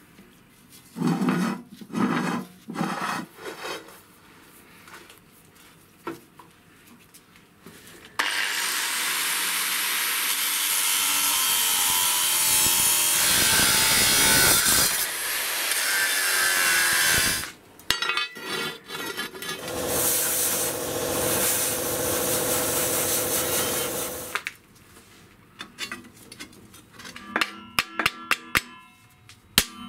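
A handheld power tool grinding metal in two long passes, each several seconds of steady noise, the second with a steady motor tone. Short knocks and clatter of metal parts being handled come before, between and after.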